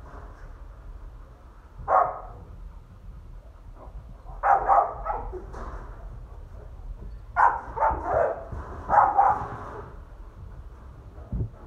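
A dog barking in kennels: a single bark, then three short runs of barks separated by a few seconds.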